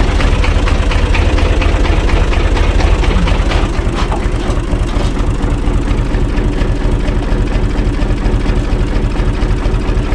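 Universal U445 DT tractor's four-cylinder diesel engine running steadily, with a dense, even knock of its firing strokes.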